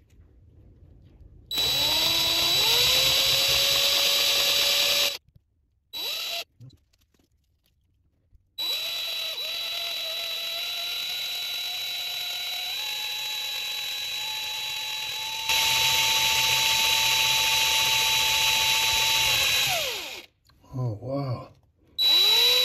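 Cordless drill driving a tiny 3/64-inch bit into a transmission pump body. It runs in spurts: it spins up and runs for a few seconds, gives a short blip, then after a pause runs steadily for about ten seconds, going up in pitch once and getting louder before it winds down. A few short blips come near the end.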